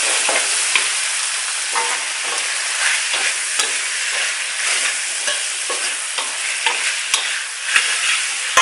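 Diced pork belly sizzling in a metal wok as a metal spatula stirs and scrapes it around, with sharp clicks of the spatula against the wok in the last couple of seconds.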